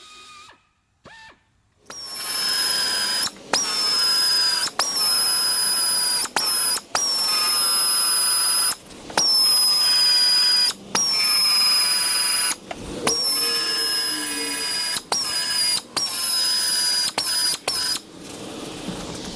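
Power drill with a spot weld cutter drilling out a car body's factory spot welds: about a dozen short runs of steady high whine, each a second or two long, with brief stops between. The whine dips a little in pitch as each weld is cut into.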